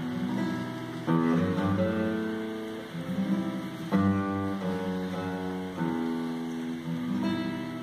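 Classical guitar and grand piano playing a piece together, the guitar's plucked notes to the fore. Chords are struck about every one to two seconds, each ringing out and fading.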